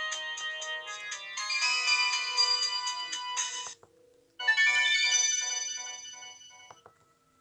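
Built-in melody tones of a Samsung E1202i mobile phone playing from its speaker. A many-note electronic tune cuts off abruptly about 3.7 seconds in; after a short pause another tone starts and fades away over about three seconds.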